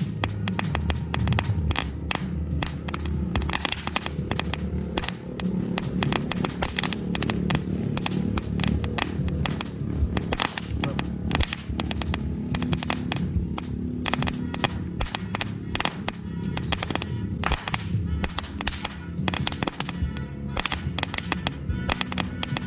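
Crackling comet fireworks going off, a continuous dense run of sharp crackling pops and bangs, with music playing underneath.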